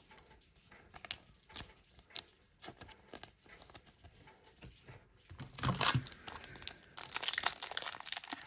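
Thin plastic packaging crinkling and tearing as trading cards are handled. Soft, scattered crackles at first, becoming louder and denser about five and a half seconds in.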